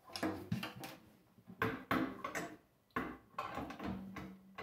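A 13-inch tom being tuned down with two drum keys: several clicks and knocks from the keys and from handling the drum, with a couple of brief low ringing notes from the drumhead.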